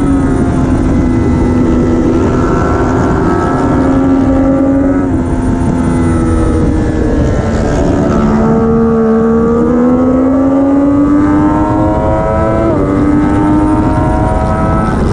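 Triumph Daytona 675R's 675 cc inline three-cylinder engine at race pace, its revs rising and falling as the rider works through corners. The pitch drops about six seconds in, then climbs steadily, with a sudden dip near the end. Heavy wind rush on the onboard microphone runs underneath throughout.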